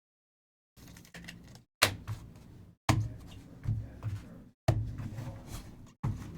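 Handling noise at a table: four sharp clicks or knocks, each followed by low rubbing and shuffling, as trading cards and plastic card holders are handled.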